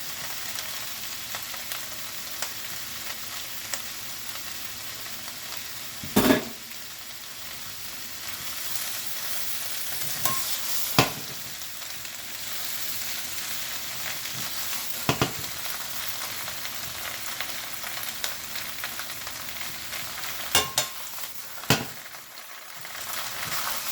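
Chinese broccoli sizzling in hot oil with garlic and ginger in a frying pan, a steady hiss, while it is stirred; the utensil knocks against the pan about six times, loudest about six seconds in.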